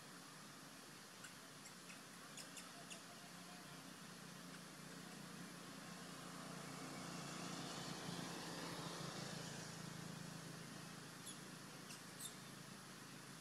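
Faint outdoor ambience: a distant engine hum swells and fades over a few seconds about halfway through, with a few short high chirps near the start and near the end.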